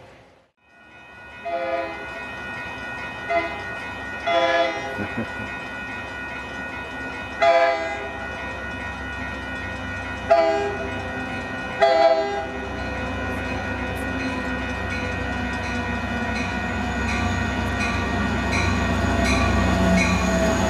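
A diesel locomotive's horn sounds a series of about six short blasts as a commuter train approaches, while a railroad crossing bell rings. Over the last several seconds the locomotive's engine rumble grows steadily louder as the train pulls alongside the platform.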